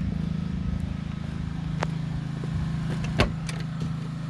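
Fuel-injected LS1 5.7-litre V8 idling steadily, with two sharp clicks or knocks; the louder one comes about three seconds in.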